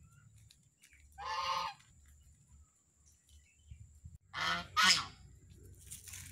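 Domestic geese honking: one call about a second in, then two louder honks in quick succession a little past the middle.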